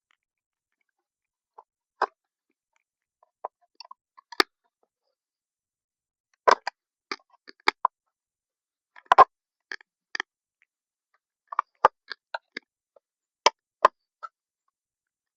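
Irregular sharp clicks and knocks, coming in small clusters, from hands and tools handling the parts of an old radio speaker as it is taken apart.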